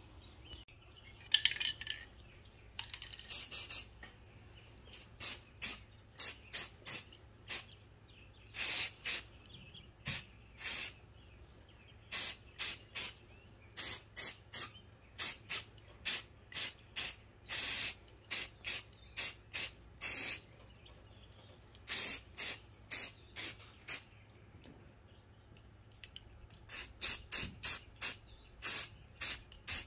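Aerosol can of Rust-Oleum High Heat ceramic coating spraying in many short hissing bursts, one quick squirt after another with a few longer ones, putting coats of paint on a brake caliper bracket. A brief sharp clatter comes about a second and a half in.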